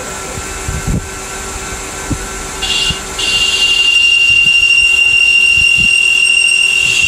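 Okuma CNC lathe running with the spindle turning, then about two and a half seconds in a loud, steady high-pitched squeal starts as the turret tool cuts the spinning part to touch off in X, and it keeps on to the end.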